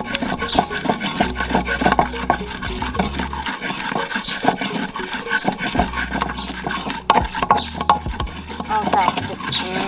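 Wooden pestle grinding a wet red paste in an earthenware grinding bowl (asanka): repeated scraping and knocking strokes of wood against the ridged clay.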